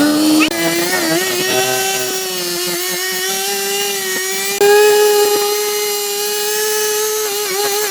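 An electric power tool motor running, giving a steady whine that creeps slightly upward in pitch and wavers briefly near the end.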